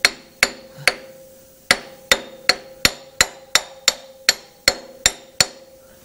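Small hammer tapping an interference-fit hub into place: about fourteen sharp metallic taps, roughly three a second after a short pause about a second in, with a steady ringing tone carrying between them.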